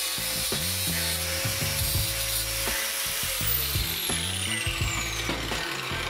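Angle grinder cutting through steel rectangular tube, then switched off about halfway through, its whine falling as the disc spins down. Background music with a steady bass line plays underneath.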